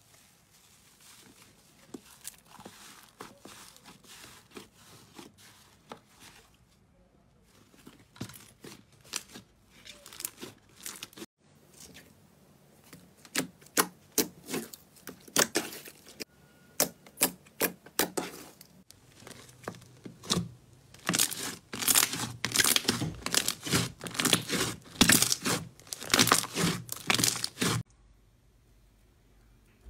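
Slime being pressed and squeezed by hand, giving runs of sharp crackling pops as trapped air pockets burst. The pops are sparse and faint at first, grow thicker about halfway through, and come loudest and densest near the end before stopping abruptly.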